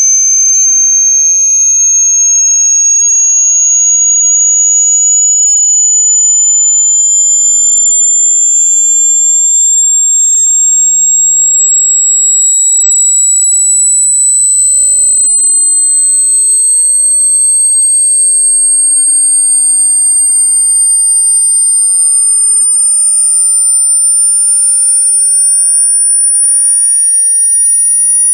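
Electronically generated pure sine tone, loud and very high-pitched, rising slowly and continuously in pitch, with fainter extra tones gliding alongside it.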